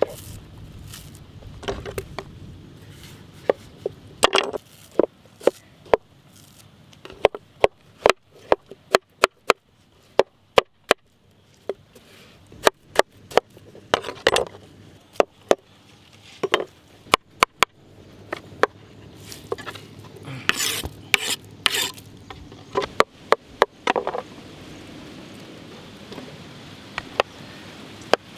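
Kitchen knife cutting dragon fruit on a wooden cutting board: sharp knocks of the blade hitting the board at irregular intervals, some in quick runs, with a few longer scraping, rustling stretches about two-thirds of the way through.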